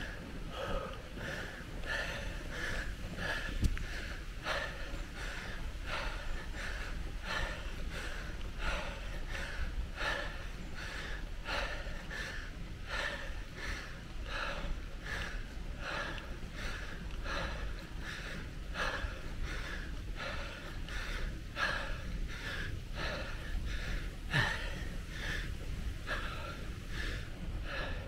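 Cyclist's hard, rhythmic breathing on a climb, quick even breaths about two a second, with a steady low rumble underneath.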